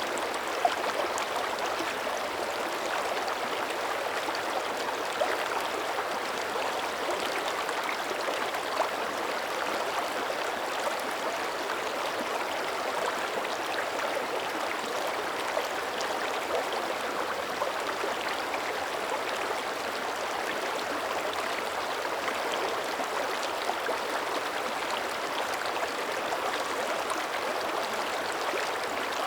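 Shallow mountain creek running steadily over rocks, a constant babbling rush with small splashes scattered through it.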